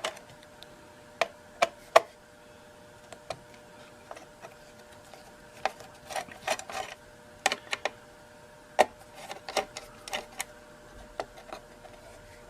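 Irregular metallic clicks and taps of a screwdriver loosening screws on an old tube radio's rusty steel chassis, the loudest about two seconds in and more coming in clusters after the middle. A faint steady hum runs underneath.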